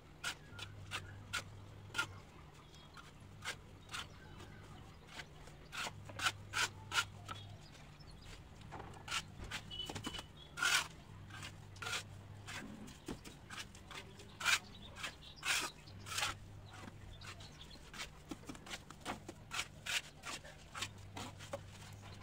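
A hand tool scraping and rubbing through cement mortar on a concrete floor in short, irregular strokes, over a faint low hum.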